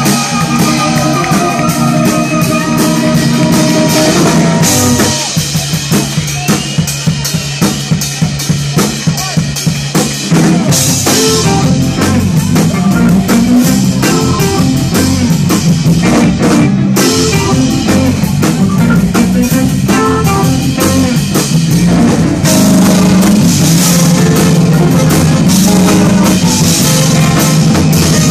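Live funk-jazz band playing with drum kit, electric guitar, saxophone and keyboard. About five seconds in, the groove turns choppy, with short gaps between the hits, for about five seconds, then the full band comes back in.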